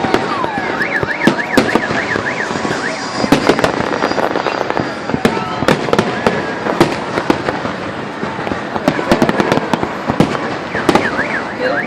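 Festival fireworks salute going off in rapid, irregular bangs and crackles. A warbling alarm tone sounds underneath about a second in and again near the end.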